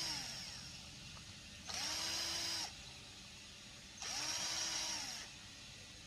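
Power screwdriver run in short bursts, each spinning up, holding speed for about a second and winding down, as screws are driven out of the printer's casing. One burst fades just after the start, then two more follow.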